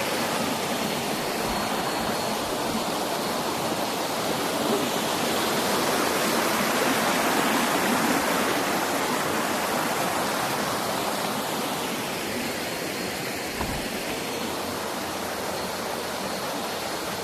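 Steady rushing of water from a jungle stream and waterfall, growing somewhat louder in the middle.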